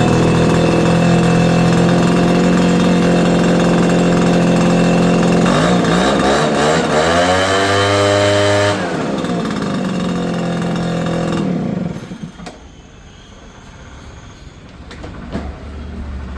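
Small two-stroke leaf blower engine running loud and steady just after being pull-started. About six seconds in its speed wavers, then drops to a lower speed about nine seconds in, and the engine stops about twelve seconds in, leaving only faint clicks and handling noise.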